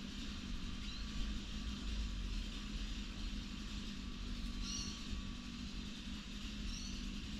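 Steady low background rumble with a faint even hum, and a few faint, short high chirps about a second in, a little past the middle and near the end.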